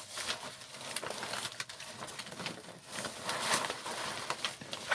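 Rustling and crinkling of a life jacket's clear plastic spray hood as it is pulled over the head and adjusted, with scattered small clicks.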